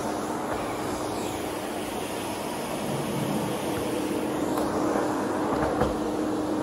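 Vorwerk Tiger canister vacuum cleaner running steadily with a constant hum, its floor nozzle working over carpet; the sound grows a little louder about four seconds in.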